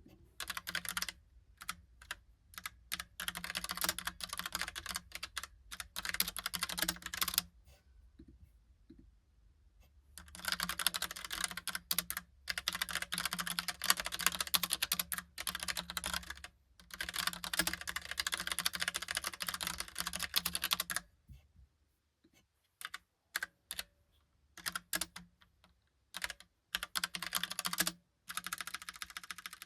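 Logitech POP Keys mechanical keyboard being typed on: fast runs of key clicks in bursts several seconds long, with brief pauses, and sparser, stop-start keystrokes near the end.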